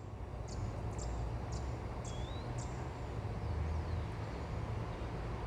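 Birds chirping, short high chirps about twice a second with one rising call about two seconds in, over a steady low outdoor rumble.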